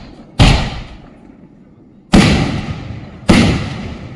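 Sony Euro 2 56-shot multi-shot fireworks cake firing large aerial shells: three loud bangs at uneven intervals, each fading out over about a second.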